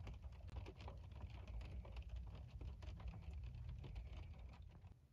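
Faint, irregular light ticking and pattering over a low rumble inside the car cabin, fading out near the end.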